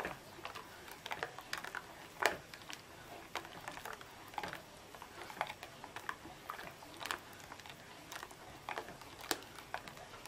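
Rubber spatula scraping and tapping against the bottom and sides of a stainless steel saucepan as it stirs lemon custard cream thickening over the heat, making irregular soft clicks and scrapes several times a second.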